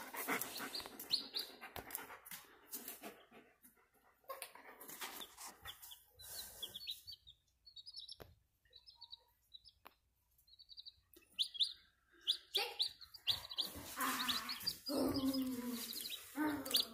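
Newly hatched chick peeping: short, high chirps repeated many times, with some knocks and rustling in between.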